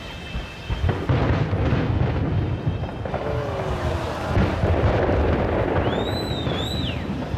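Aerial firework shells bursting in quick succession, the bursts thickening about a second in. Near the end a high whistle rises and falls.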